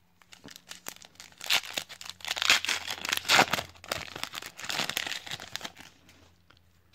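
Foil wrapper of a trading card pack being torn open and crinkled in the hands: a dense run of crackling and tearing that dies away near the end.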